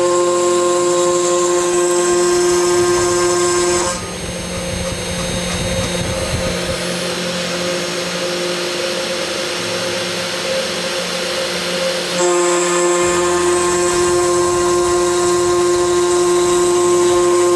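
Spindle of a TwoTrees TTC450 Pro hobby CNC machine milling a slot in plywood with an upcut bit: a steady high whine over the hiss of cutting. About four seconds in the whine gives way to a rougher, noisier cutting sound, and it returns about twelve seconds in.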